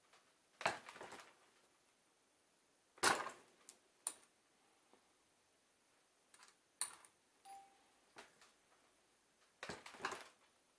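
Brass rifle cartridge cases and a Lyman reloading press being handled during case sizing: a handful of separate small clicks and clinks with quiet between them, the loudest about three seconds in.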